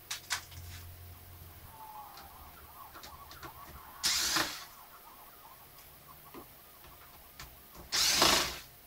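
Cordless electric screwdriver running in two short bursts of about half a second each, about four seconds in and again near the end, turning the screws of a laptop's screen bezel. A few light clicks at the very start.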